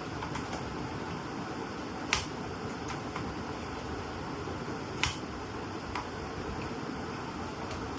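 Sharp plastic clicks and handling taps as a battery is fitted into an Insta360 X5 360° camera, with two clearer clicks about two and five seconds in, over a steady background hiss.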